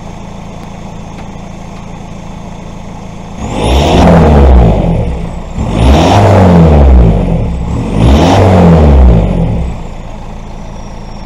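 VW Caddy van's turbocharged engine idling through a newly fitted cat-back straight-pipe exhaust, then revved three times. Each rev brings a rising turbo whistle that falls away as the revs drop, before the engine settles back to a steady idle.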